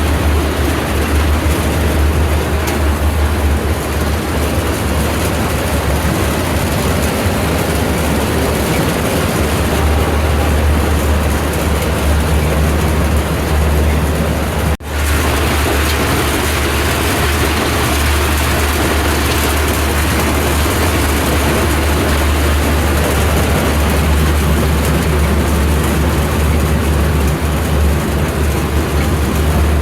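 Tractor engine running steadily with a deep, even drone, broken only by a momentary cut about fifteen seconds in.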